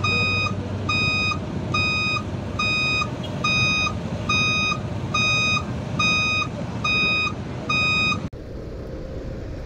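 Electronic vehicle beeper sounding a long, high beep about every three-quarters of a second over a low engine rumble. The beeping stops abruptly about eight seconds in.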